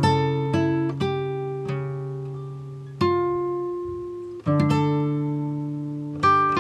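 Slow instrumental background music of plucked strings, each chord struck and left to ring and fade before the next.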